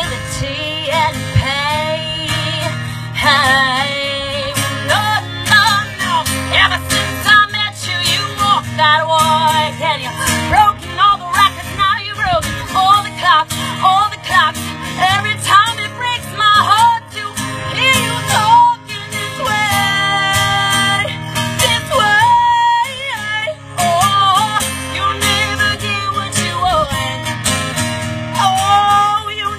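A woman singing live to her own acoustic guitar, amplified through a PA, with some long held notes about twenty seconds in.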